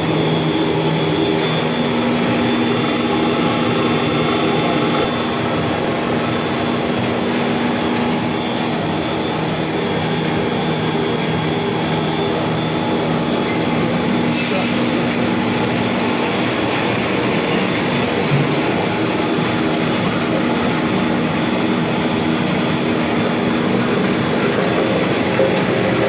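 Puff snack extrusion line machinery running: a steady mechanical drone with a low hum and a constant high whine, and one brief sharp sound about halfway through.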